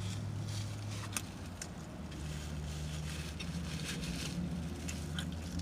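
Steady low hum of an idling car, with faint scattered clicks of chewing and mouth smacking over it.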